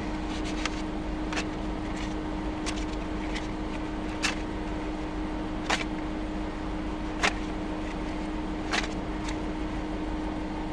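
Steady hum inside an idling car, with a constant low tone under it. Sharp clicks come at fairly even intervals, about every second and a half, and are loudest in the second half.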